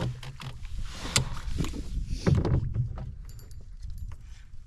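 Knocks and rustling of gear in a canoe as a hooked trout is reeled in on a spinning reel, with a few sharp knocks, the loudest about two seconds in.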